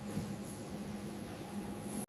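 Faint steady background noise with a low hum and no distinct events.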